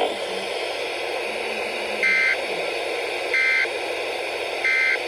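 Three short buzzing bursts of Emergency Alert System digital data, about 1.3 seconds apart, over a steady FM radio hiss. The bursts are short and sent three times, which marks them as the EAS end-of-message code that closes the alert.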